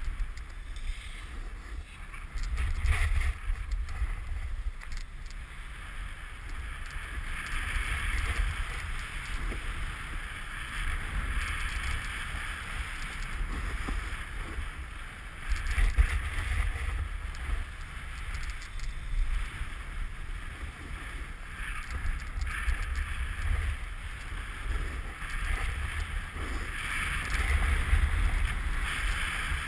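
Snowboard base and edges sliding and scraping over bumpy, cut-up packed snow, a continuous rushing hiss that surges louder at a few points, with wind rumbling on the microphone.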